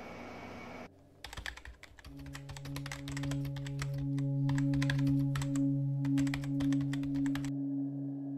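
Keyboard typing sound effect, a rapid run of clicks with brief pauses, laid under text typing out on screen. It starts about a second in and stops shortly before the end, over a steady low ambient music drone that comes in about two seconds in.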